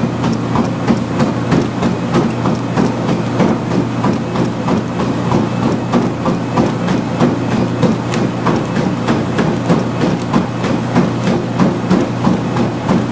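Treadmill running at speed 10, a 6-minute-mile pace: a steady motor hum under the rhythmic thud of running footfalls on the belt, about three steps a second.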